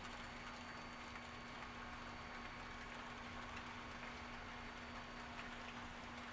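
Model freight train rolling past, the cars' wheels making faint, irregular clicking over the track, with a steady low hum underneath.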